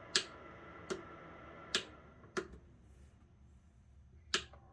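Five sharp clicks at uneven intervals from the power button of a small MAKAYLA dehumidifier being pressed, over the unit's faint steady hum.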